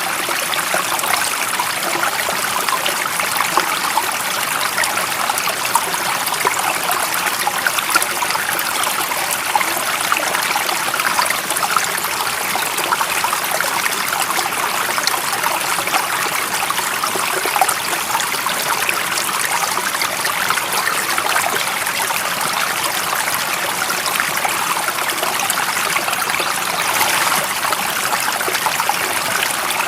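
Shallow stream running steadily, a continuous babble and trickle of water over stones.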